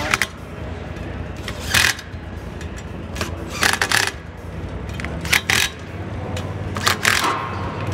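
Cordless impact driver run in five short bursts, about every one and a half to two seconds, each one snugging down a bolt of an aluminium beadlock ring on a race wheel. A steady low hum of background noise lies under it.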